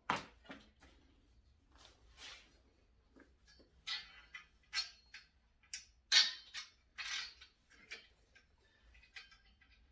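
Small metal hardware such as bolts and nuts being handled and sorted by hand during the assembly of a table saw stand: a scattered series of light clicks, clinks and brief rattles, the loudest about six seconds in.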